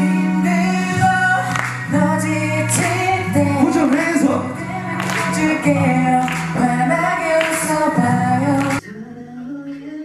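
K-pop song, with a boy group's voices singing over a backing track with a steady bass line. Near the end it cuts off abruptly to a quieter, thinner passage of singing.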